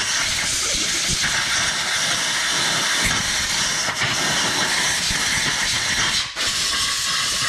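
Spray cleaner hissing in one long continuous blast to flush dust out of jackhammer parts, with a brief break about six seconds in.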